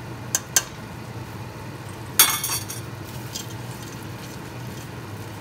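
Metal mesh strainer knocking against the rim of a stainless steel pot as fried bacon pieces are tipped in: two light taps, then a louder clatter about two seconds in. A wooden spoon then stirs the bacon through the cooked onions and sauce.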